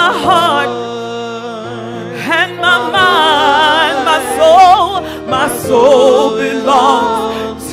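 A woman singing with strong vibrato into a microphone, accompanied by sustained chords on an electronic keyboard.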